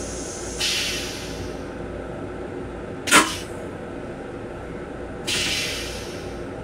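Steady hum of an M7 railcar, heard from inside its restroom. Two sudden hisses, each fading over about a second, come early and about five seconds in, and a single sharp knock, the loudest sound, falls between them about three seconds in.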